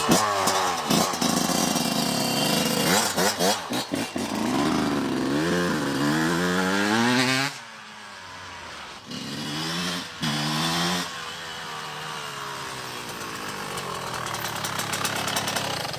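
Yamaha YZ125 two-stroke dirt bike engine revving as it is ridden, its pitch climbing again and again through the gears, then falling away suddenly about halfway through. It revs up once more, then runs steadier and quieter, still running normally with vegetable oil in place of its oil.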